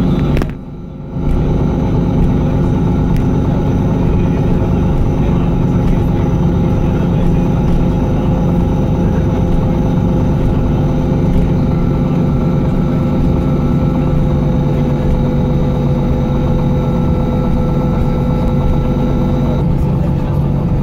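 Airport apron bus running at a steady speed, heard from inside the cabin: an even engine and drivetrain hum with a steady whine over it. The sound drops out briefly about half a second in.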